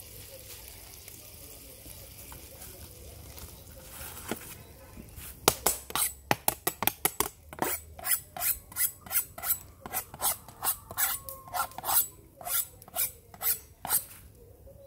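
A knife scraping over a whole raw fish in a plastic bowl in quick rasping strokes, about two a second, starting about five seconds in.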